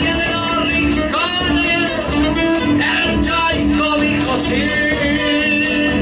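Latin American folk music playing: a wavering melody line over a steady accompaniment.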